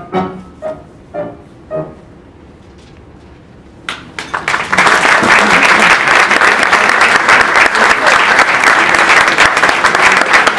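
Two pianos play the last few single notes of a piece, which ring away into a brief hush. About four seconds in, an audience breaks into loud, steady applause that continues on.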